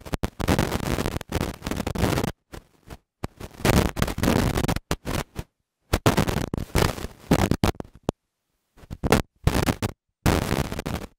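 Irregular bursts of rough noise on the microphone, each cutting in and out abruptly with dead silence between.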